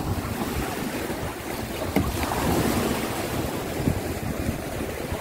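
Wind buffeting the microphone over small waves washing in at the shoreline, with a brief sharp knock about two seconds in.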